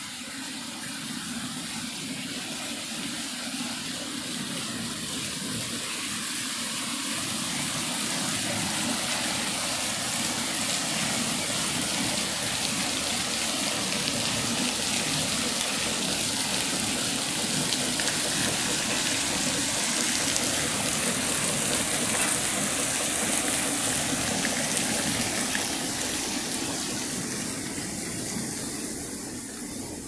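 Water spilling steadily from the end of a wooden flume and splashing into a pool. It grows louder over the first several seconds and fades away near the end.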